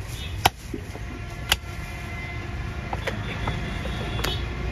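Butcher's cleaver chopping goat meat on a wooden stump block: a few sharp chops about a second apart, over a steady low rumble.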